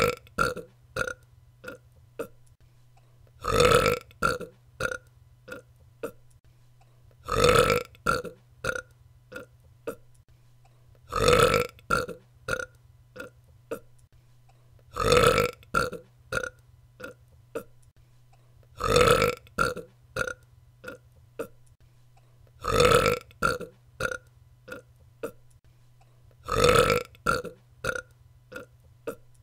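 A woman's burp, repeated about every four seconds, about eight times. Each loud burp is followed by a quick string of four or five short, fainter pulses.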